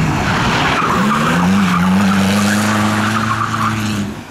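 BMW E46 Compact sliding with its tyres squealing and skidding while the engine is held at steady high revs. The engine dips at the start and picks up about a second in, and the squeal and engine drop off sharply near the end.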